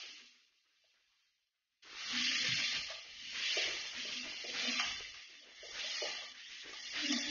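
Diced onions and tomatoes sizzling in hot oil in a nonstick wok while a slotted spatula stirs and scrapes through them. The sizzle starts suddenly about two seconds in and swells and dips as the pan is stirred.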